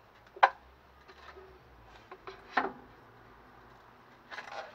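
A few short knocks and clatters of tools being handled and set down. The sharpest knock comes about half a second in, another in the middle, and a brief rattling clatter near the end.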